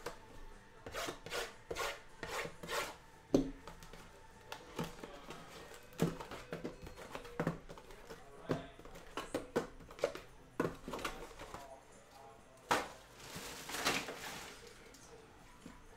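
Shrink-wrapped cardboard mini boxes of 2021 Bowman Sterling cards being handled: lifted out of their master box and set down on a table, a run of light taps and knocks with rubbing between them. A louder knock comes near the end, followed by about a second of sliding.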